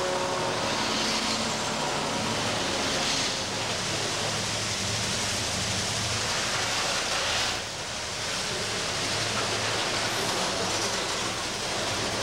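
Freight train passing close by: the GM G22UB diesel locomotive's engine running, then the steel wheels of freight wagons rolling over the rail, a steady noise that dips briefly about seven and a half seconds in.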